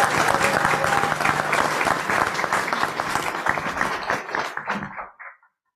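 Audience applauding, thinning out and dying away about five seconds in.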